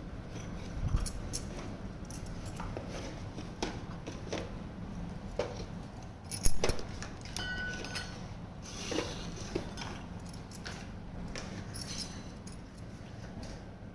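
Toy kitchen set pieces being handled: scattered light clicks, taps and clinks, the loudest a sharp click about six and a half seconds in, followed by a brief ring.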